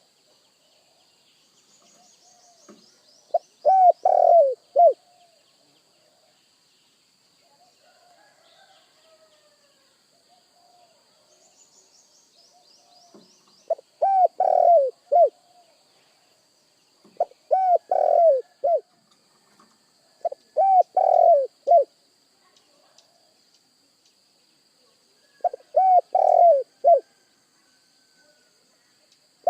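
Spotted dove cooing: five loud phrases of three or four arched coos each, several seconds apart, with softer coos in between. Faint high twittering of small birds comes twice.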